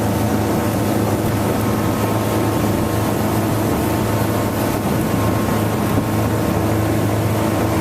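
Boat's 120 hp MerCruiser four-cylinder sterndrive engine running steadily at cruising speed, with the hull up on plane. A steady rush of wind and water runs under the engine note.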